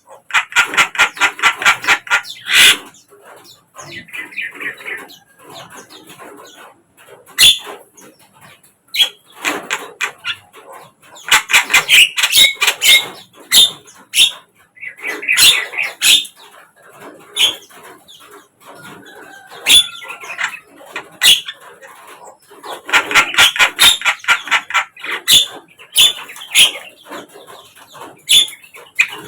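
Javan myna calling: bouts of rapid, harsh chattering and sharp clicks with short pauses between, and a brief gliding whistle near the middle. This is a lure recording, played to coax a silent caged myna into answering.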